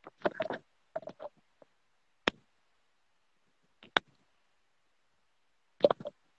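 Broken-up live-stream audio: a few short, clipped bursts of sound cut off by dead silence, with two sharp clicks about two and four seconds in. The connection's sound is dropping out.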